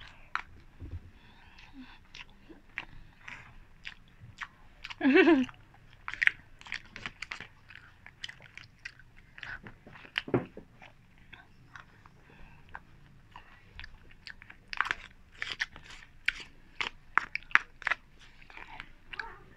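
Close-miked eating sounds: a plastic spoon clicking and scraping in a plastic cup, with chewing and lip-smacking. About five seconds in, a short voiced sound from the eater is the loudest moment, and a soft thud comes about ten seconds in.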